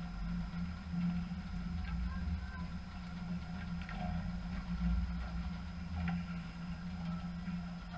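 Indoor ice rink ambience: a steady low hum with faint, distant voices and a few light scattered scrapes or knocks.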